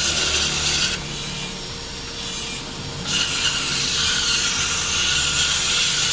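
Aerosol cleaner spray hissing in two long bursts, a short one at the start and a longer one from about three seconds in, washing dirt off a scooter part. A steady low hum runs underneath.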